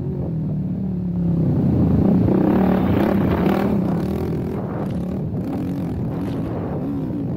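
Suzuki LTR450 quad's 450 cc single-cylinder four-stroke engine revving hard under racing throttle, heard from on board. The revs climb and grow louder about a second in, then drop back and rise and fall again with the throttle through a corner.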